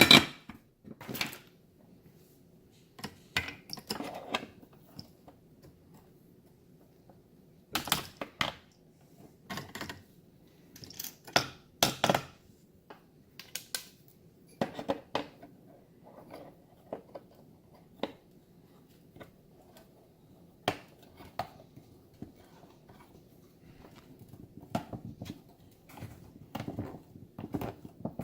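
Irregular clicks and light metallic clinks of small robot parts and tools being handled on a workbench, with a sharp knock right at the start.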